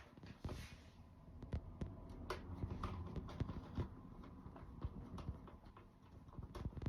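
Irregular light clicks and knocks from handling the DVR's cover and case while it is being closed up, with a low rumble of handling between them.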